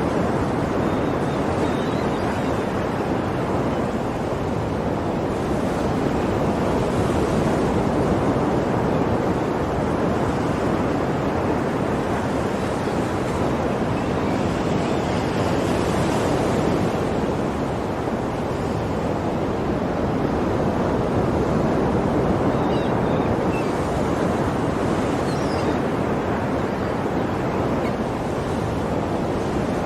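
Ocean waves washing onto a shore, a continuous surf that swells and eases slowly, with a few brighter hissing washes as waves break.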